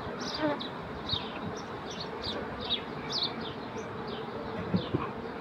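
Honeybees buzzing steadily from an opened hive as a frame is lifted out for inspection.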